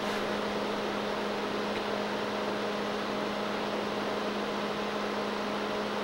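Steady electrical hum with an even fan-like hiss from the powered-up HP 5245L Nixie frequency counter. The hum is one held low tone with fainter higher tones above it, and it does not change.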